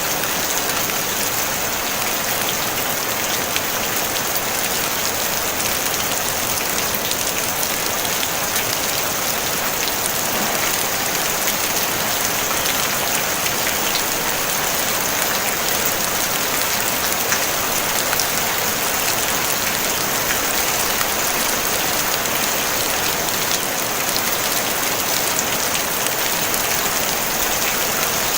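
Steady rain on a tin roof: an even hiss of falling rain with many small drop ticks, no thunder.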